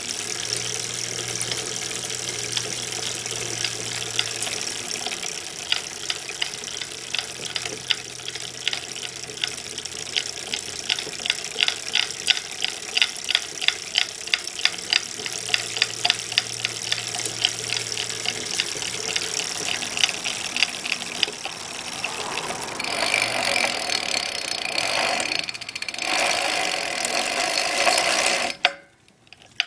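A2B Metro G2 electric bike's drivetrain knocking in rhythm with the pedaling, about two to three sharp knocks a second over a steady rushing noise, fading out a little past the middle. The owner suspects the stock 7-speed freewheel, short of grease.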